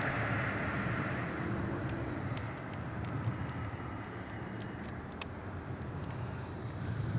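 Steady low rumble of distant road traffic, slowly fading, with a few faint ticks.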